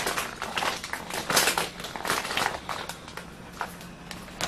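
Flameless heating pack reacting with water under a lidded stainless steel camping pot: an irregular sizzling crackle, dense for the first two seconds and thinning out after.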